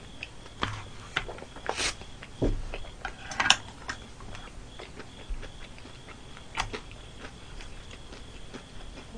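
Eating sounds: chewing fried chicken, with a handful of short crunches and clicks scattered about a second apart, and chopsticks clicking against a plate.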